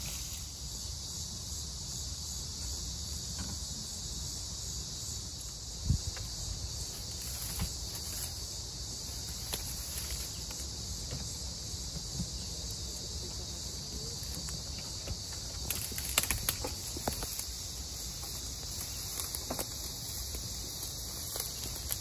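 Insects chirring steadily in grass, with a few sharp clicks and knocks from a plastic pet carrier being handled and unlatched, most of them about two-thirds of the way through.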